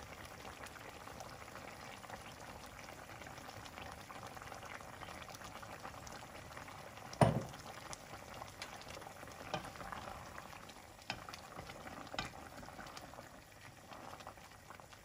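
Pot of pork hocks simmering in vinegar broth: a faint, steady bubbling and crackling. A sharp knock comes about halfway through, and a few lighter clicks follow as a spoon stirs the stew.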